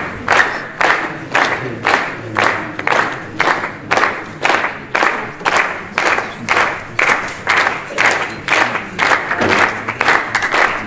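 A crowd clapping in unison to a steady beat, a little over two claps a second.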